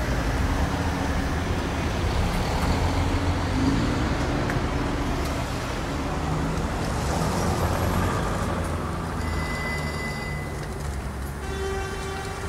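Steady city road-traffic noise: a continuous low rumble of passing vehicles. About ten seconds in a short high steady tone sounds, and near the end a lower chime-like tone.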